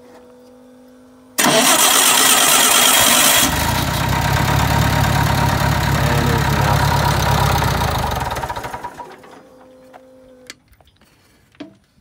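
The sawmill's choked gasoline engine, sitting for a few weeks, is cranked and catches, starting abruptly about a second and a half in, running for several seconds and dying away by around nine seconds. A faint steady hum is heard before and after it.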